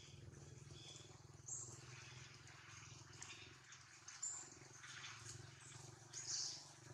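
Faint outdoor ambience: a low steady hum with three short, high chirps spread through it, a little louder than the rest.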